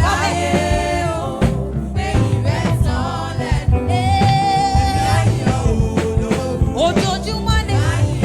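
Gospel praise singing with band accompaniment: a lead voice over a steady, danceable beat and bass.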